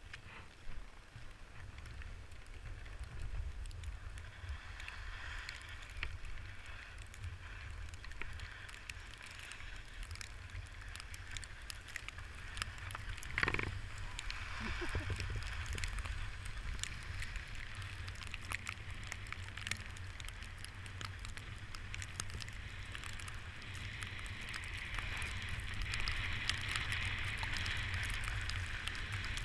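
Wind buffeting a body-worn action camera's microphone while riding downhill on snow, with the hiss and scrape of snow sliding under the rider and scattered small knocks. One sharper knock about 13 seconds in.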